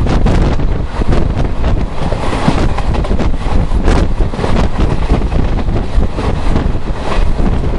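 Loud, steady rumble of a moving vehicle, with wind buffeting the microphone and irregular crackles throughout.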